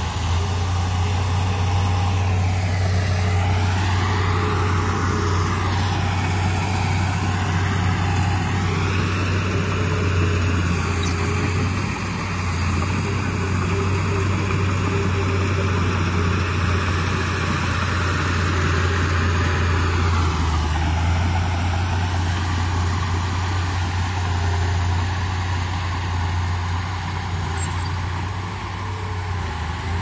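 Komatsu D31P bulldozer's diesel engine running steadily with a heavy low drone, its higher noise swelling and sweeping up and down in pitch a few times.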